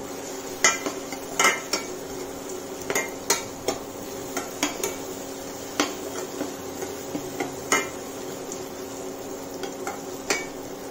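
A spatula stirring in a kadhai, knocking and scraping against the pan at irregular moments as turmeric is mixed into the frying onion-tomato masala. A steady low hum runs underneath.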